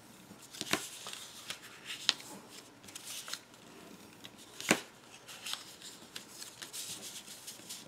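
Scored design paper being handled and folded by hand: soft rustling with scattered sharp crinkles and taps, the sharpest about three quarters of a second in, around two seconds in, and the loudest near the middle.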